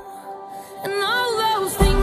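Pop song: a woman sings a line over sustained backing notes, and bass and drums come in just before the end.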